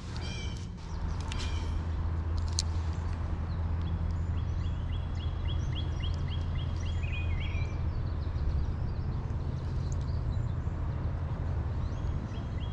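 Songbirds calling, with a quick series of about a dozen chirps midway, over a steady low hum.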